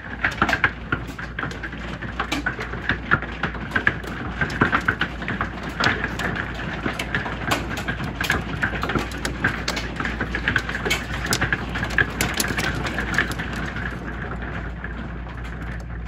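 Hailstorm pelting an RV: a dense, irregular rattle of hard hailstone hits over a steady rain hiss.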